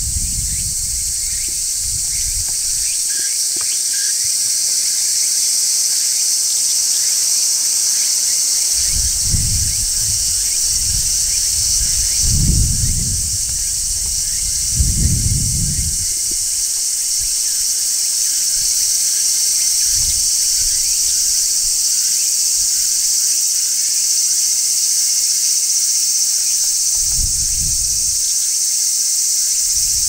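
Cicadas shrilling in a steady, unbroken high-pitched drone, with a few brief low rumbles underneath.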